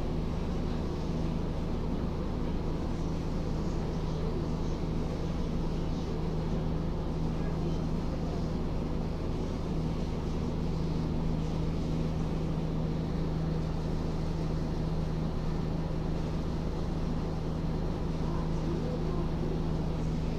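A steady low machine hum with an even pitch, unchanging throughout.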